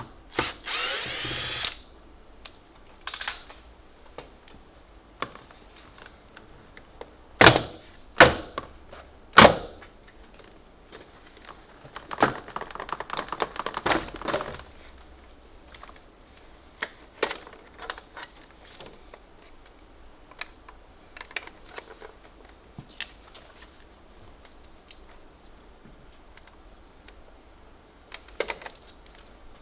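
Cordless drill-driver runs for about a second and a half, backing a screw out of a car door trim panel. Then come a series of sharp plastic snaps and knocks as the trim is worked loose and pulled off its clips; the loudest three come close together, followed by a stretch of plastic rubbing and rattling and scattered lighter clicks.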